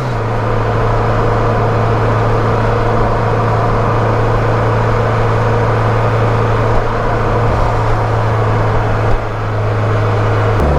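Mitsubishi Lancer Evolution X's turbocharged 2.0-litre four-cylinder breathing through a K&N Typhoon intake, heard from under the hood, holding steady revs with a constant drone.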